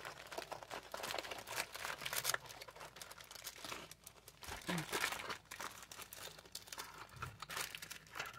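Packaging crinkling and rustling in irregular bursts as a small boxed product is handled.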